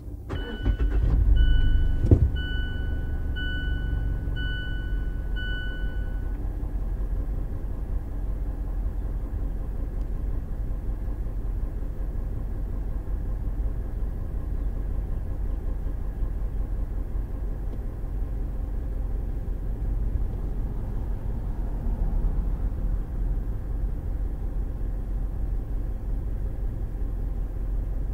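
Mazda CX-5 engine starting, heard from inside the cabin: it catches with a brief rise in revs and a knock about two seconds in, then settles into a steady idle. A dashboard chime beeps about five times, evenly spaced, over the first six seconds.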